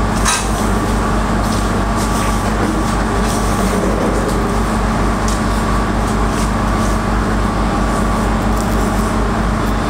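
A steady machine drone with a low pulsing hum fills the room, under light scraping of a silicone spatula working butter and sugar around a stainless steel bowl.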